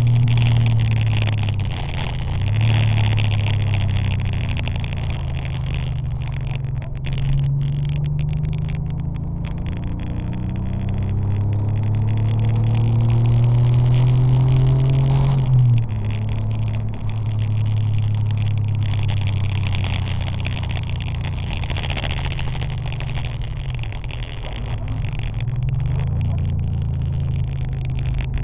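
Porsche 911 (964) air-cooled flat-six engine heard on board at speed, the engine note rising and falling through lifts, braking and acceleration. It pulls up steadily for about five seconds before dropping sharply at an upshift about halfway through.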